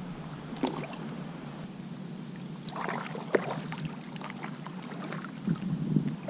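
Light water splashing with small knocks and rattles from handling in a fishing kayak, including a sharp click about three seconds in.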